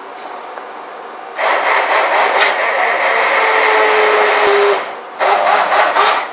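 Hand-held stick blender puréeing a cooked habanero pepper and onion sauce in a saucepan. It runs in two bursts: one of about three seconds starting a second and a half in, then a shorter one near the end.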